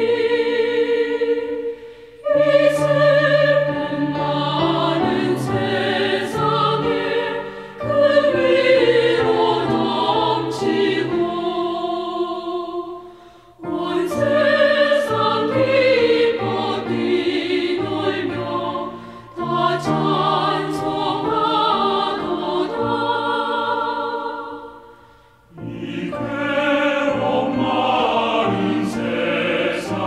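Choir singing a Christmas carol in long phrases, with short breaks between them.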